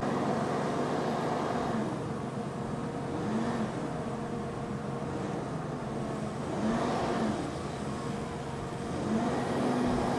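Mobile crane's engine running under load, revving up and easing back about four times as the crane works a lift.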